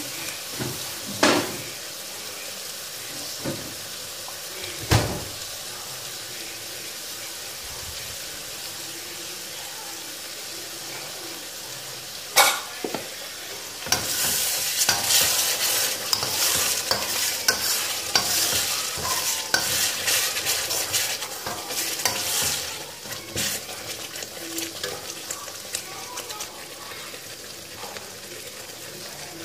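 Red chili paste frying in a wok, stirred with a metal spatula that gives a few sharp knocks against the pan. About halfway through, a loud sizzling and crackling starts suddenly, then eases back to a low fry after about nine seconds.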